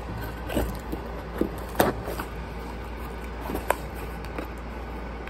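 A cardboard shipping box being handled and opened by hand: scattered light scrapes and taps of fingers on the cardboard flap, with one sharper knock about two seconds in, over a steady low hum.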